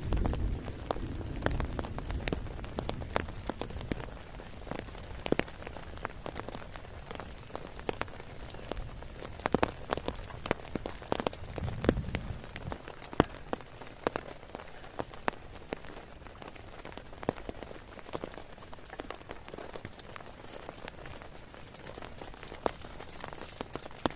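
Steady rain falling, with many sharp, separate drops striking close by. A low rumble sounds under it for the first few seconds and again briefly about twelve seconds in.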